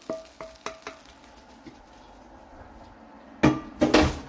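A wooden spatula tapping and scraping a frying pan as fried onions are tipped from it into a stainless steel pot, with a short metal ring; near the end, two loud knocks of the pan against the pot or hob.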